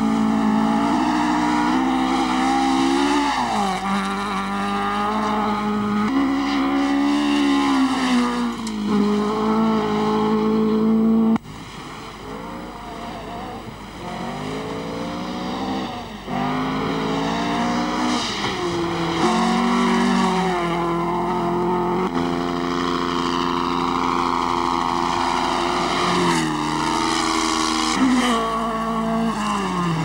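Rally car engines revving hard through gravel-stage corners, the pitch climbing and dropping again and again with throttle and gear changes. Several different cars follow one another, with abrupt jumps in loudness where one pass cuts to the next.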